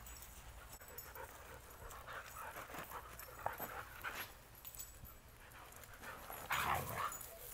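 Huskies playing together: quiet dog sounds and scuffling, with a louder dog vocalization about six and a half seconds in.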